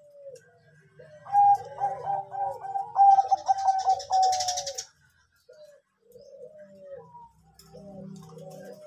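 Zebra dove (perkutut) cooing: a quick run of short, rolling coo notes, loudest from about a second in to about five seconds, with a brief high hiss near the end of that run. Softer coo notes follow near the end.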